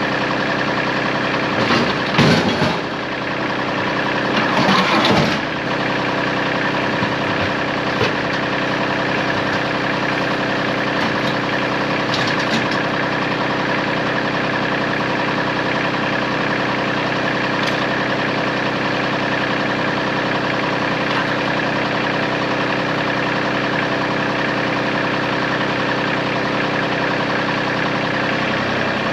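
Tractor engine running at a steady idle, with two louder rough bursts at about two and five seconds in.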